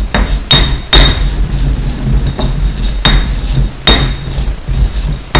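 Pestle grinding coriander and cumin seed in a mortar, knocking sharply against the bowl several times at uneven intervals, each knock ringing briefly, with a steady scraping rumble between.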